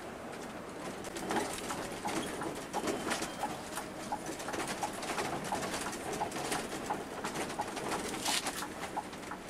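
Cabin noise inside a Scania K360-engined intercity bus on the move: a steady engine and road drone, with frequent sharp rattles and clicks from the cab fittings.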